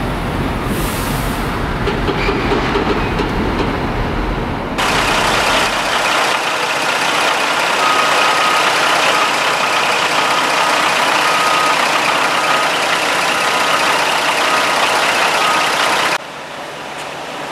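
Heavy road vehicle running with a low rumble. About five seconds in it switches abruptly to a loud, steady hiss with a faint high tone, which cuts off sharply near the end.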